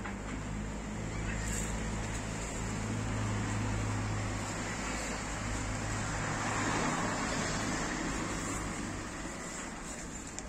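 Street traffic: a steady low engine hum, with a vehicle swelling louder as it passes about two-thirds of the way through and then fading.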